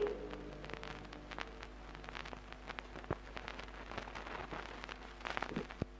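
Surface crackle and scattered clicks and pops from a 7-inch vinyl single as the stylus rides the groove after the song has ended. A quick run of louder clicks comes near the end.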